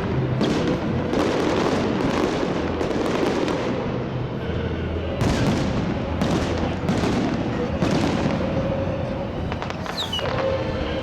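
Fireworks salute: a rapid, continuous run of bangs and crackling from bursting shells, several bangs a second.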